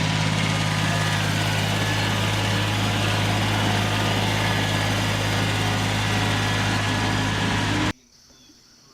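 An engine running steadily at a constant speed, ending abruptly about eight seconds in.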